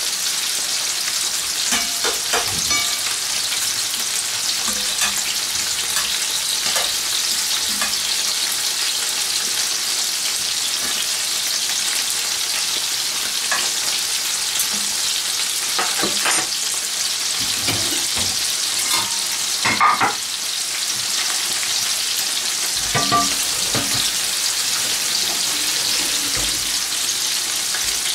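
King prawns sizzling steadily in hot olive oil in frying pans, with scattered clinks and scrapes of a fork and a spatula turning them against the pans; the loudest knock comes about twenty seconds in.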